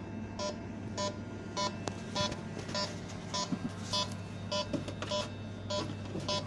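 Electronic refrigerant leak detector beeping at a steady rate of a little under two beeps a second while it is passed over the refrigeration lines, over a low steady hum.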